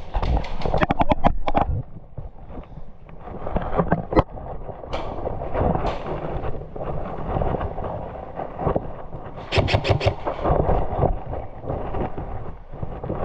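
Airsoft guns firing in rapid bursts of sharp clicking shots, a quick string near the start and another about ten seconds in, with a single shot in between, over steady low background noise.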